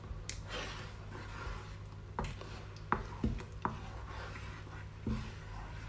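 Wooden spoon stirring a thick cream sauce in a frying pan: soft scraping, then a few short sharp knocks of the spoon against the pan, over a steady low hum.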